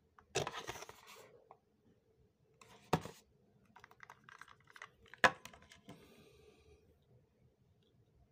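Hands handling a plastic wireless-earbud charging case and earbuds: rustling, small clicks, and two sharp plastic snaps about three and five seconds in.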